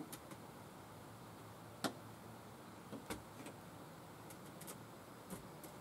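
A few faint knocks and clicks of someone handling a plastic jerrycan and moving about inside a small bamboo hut, the sharpest knock about two seconds in.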